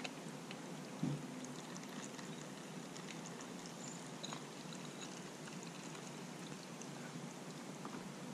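Old engine oil trickling from under the motorcycle's loosened oil filter cover into a catch pan, a steady pouring sound with faint ticks and one low knock about a second in.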